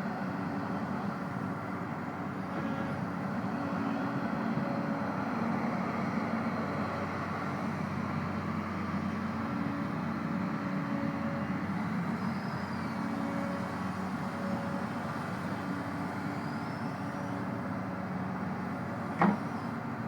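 Doosan DX300LC 30-ton excavator's diesel engine running steadily, with one brief loud knock about a second before the end.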